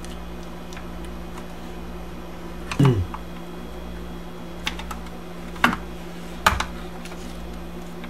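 A handful of sharp clicks and taps of a ballpoint pen and screwdriver tip against the plastic rear hatch handle trim and the tape over it, the loudest about three seconds in, over a steady low hum.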